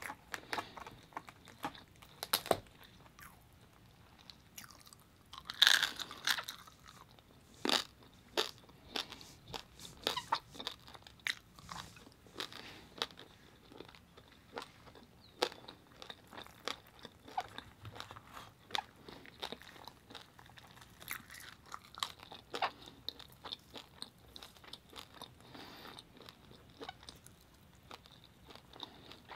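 Close-up eating sounds of roasted pig head (lechon): irregular crunching, chewing and wet mouth clicks, the loudest crunches about six seconds in.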